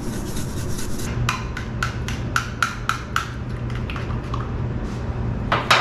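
Spice shaker shaken over a bowl, a fine rattle for about the first second, followed by a run of about eight sharp clinks, about four a second, of a spoon against a ceramic bowl as melted butter and seasonings are stirred, with one louder click near the end.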